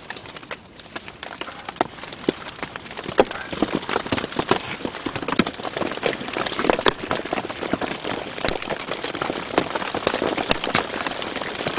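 Dense, irregular pattering of precipitation on the tent's fabric fly, many sharp ticks a second, growing thicker a few seconds in.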